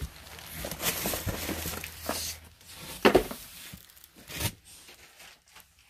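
Plastic bags and packaging rustling and crinkling as goods are shifted about in a box, with several sharp knocks, the loudest about three seconds in.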